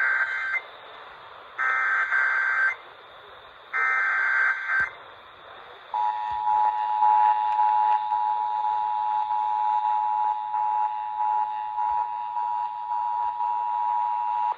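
Emergency Alert System activation heard over a radio broadcast: three short bursts of the SAME header's digital data tones, each about a second long, then about six seconds in the EAS two-tone attention signal, a steady two-pitch tone that holds on.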